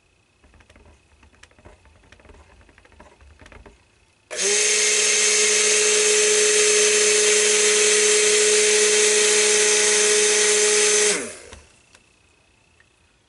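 Stick (immersion) blender switched on about four seconds in, running at a steady pitch for about seven seconds, then switched off and winding down. It is blending lye solution and oils into cold-process soap batter on the way to trace. Faint light clicks and knocks come before it.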